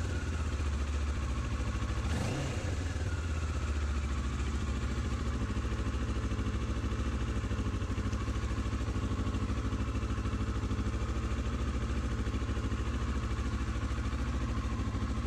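Kawasaki ER6f's 649 cc parallel-twin engine idling steadily.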